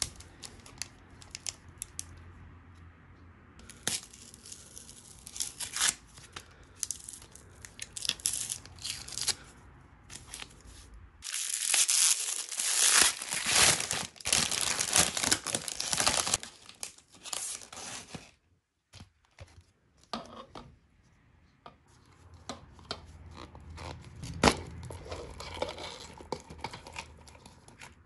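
Cellophane wrapper of a giant lollipop being crinkled and torn open, with a long, loud stretch of rustling and tearing in the middle. Quieter plastic crinkling follows, with one sharp plastic click near the end.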